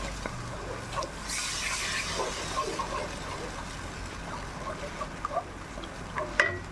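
Thick sauce bubbling in a stainless steel frying pan while a wooden spatula stirs and scrapes through it, with many small wet pops. A sharp tap with a short ring sounds near the end.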